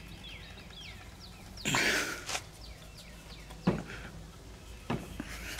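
A wrench working a stuck carburetor nut on a small engine: a brief scrape about two seconds in, then two sharp metal clicks a little over a second apart. A bird repeats short falling chirps in the background during the first half.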